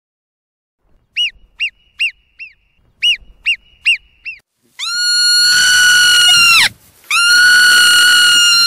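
Marmot calls: a quick run of about eight short, high chirps, then two long, loud whistles of nearly two seconds each, held level and dropping in pitch as they cut off.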